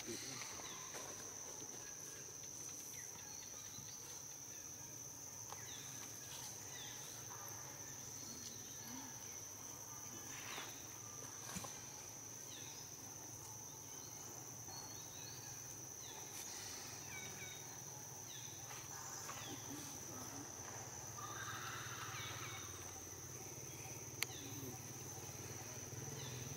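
Steady high-pitched insect drone, with faint short chirps now and then and an occasional soft click.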